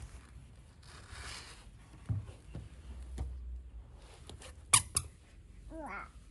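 Toddler's squeaky shoes squeaking with her steps: two sharp, high squeaks about four and a half seconds in, then lower squeaks near the end that rise and fall in pitch.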